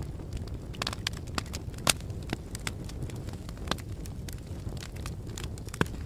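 Fire crackling: irregular sharp pops and crackles over a steady low rush of burning, with the loudest pops about two seconds in and near the end.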